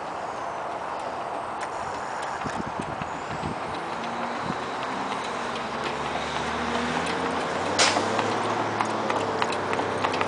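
Morgan mare's hooves trotting on asphalt, the clip-clop growing louder as she and her two-wheeled cart draw near, with one sharp clack about eight seconds in. A steady vehicle rumble runs underneath.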